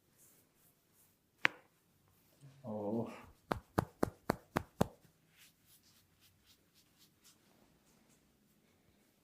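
Six quick, sharp hand strikes, about five a second, typical of the chopping and tapping strokes of an Indian head massage. A single sharp click comes about a second and a half in, and a short hum-like voice sound just before the strikes.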